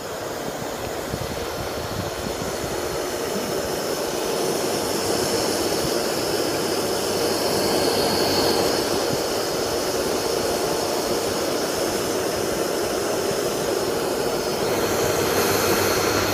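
ESPA centrifugal water pump running: the electric motor and its cooling fan give a steady whirring hum. It grows louder over the first few seconds, then holds steady.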